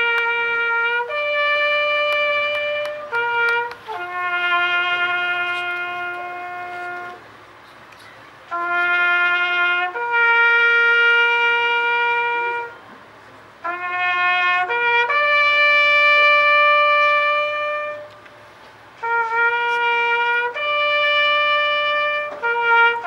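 Solo trumpet playing a slow call in long held notes, stepping up and down in pitch, with short breaths between phrases.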